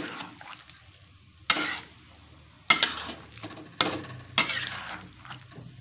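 Spatula stirring through fish and tomato broth in a wok: about four sharp scraping strokes against the pan, with a faint simmer between them.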